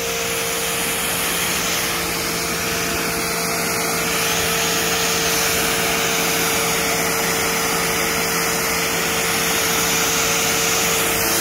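Giraffe Grandfalls Pro electric pressure washer wand blasting a high-pressure water jet against a truck wheel and tyre: a steady, loud hiss of spray, with a steady hum from the electric pump motor underneath.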